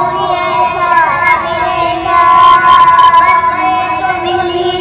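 A child's voice singing a melody in long held notes that waver slightly in pitch.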